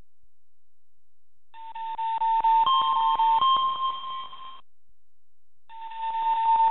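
Seismic monitor's electronic alert signal: a beeping tone over rapid even ticks that steps up from a lower note to a higher one. It sounds for about three seconds, stops, and starts again near the end. It is set off by the earthquake's seismic waves reaching the monitored seismometers.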